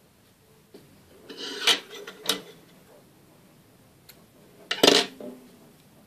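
Small metal scissors handled on a tabletop: a few short scraping clicks about one and a half to two seconds in, then a louder, sharp metal clack about five seconds in as they are set down.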